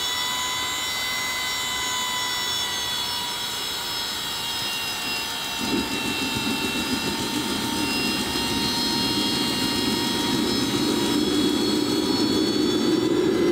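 Small RC jet turbine being spun up by its starter during the automatic start sequence, with a steady high-pitched whine. About six seconds in, a rushing rumble starts suddenly and builds steadily louder as the engine enters its preheat stage.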